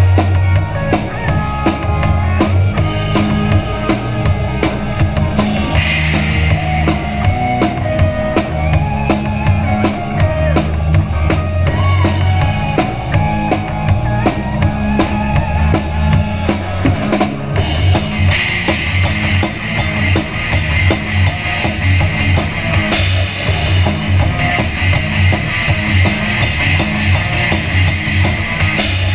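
Live rock band playing, with the drum kit loud and close: a driving beat of bass drum, snare and cymbals over electric guitars and bass.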